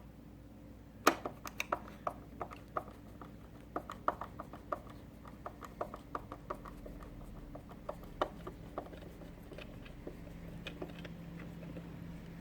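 Irregular small clicks and taps of a garage door wall button being handled and taken off the wall, with one sharper knock about a second in and the taps thinning out toward the end.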